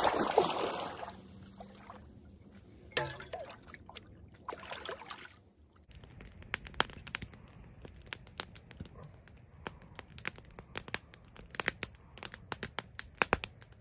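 Water splashing as a kettle is dipped into the river to fill it, fading within about a second and a half. Later, a small wood campfire crackles with many sharp, irregular pops and snaps under the hanging kettle.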